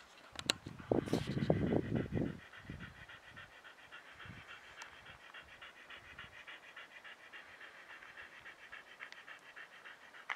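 A dog panting rapidly and steadily, about five breaths a second, after a brief low rumbling burst of noise in the first two seconds.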